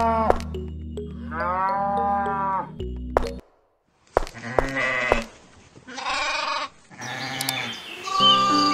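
Recorded sheep bleats played as sound effects: several separate calls, with a brief break in the sound about three and a half seconds in. Background music with steady tones and chirping sounds comes in near the end.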